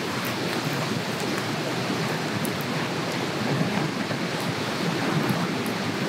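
Lamb and bean sprouts sizzling steadily in a cast-iron skillet over a wood campfire, with small scattered crackles and pops from the fire.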